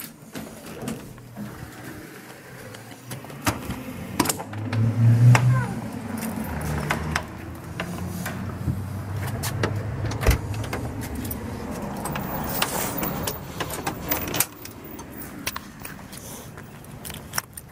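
Clicks and knocks of a lever door handle and latch being worked and a door opened, with a low rumble about five seconds in, then steadier outdoor background noise with more scattered clicks.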